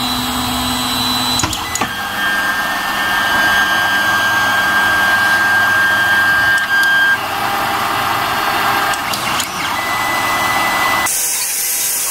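Creality Ender 3 Pro 3D printer starting a print: its stepper motors whine in steady tones that change pitch every few seconds as the bed and print head move into position, over the steady rush of its cooling fans. A brighter hiss comes in near the end.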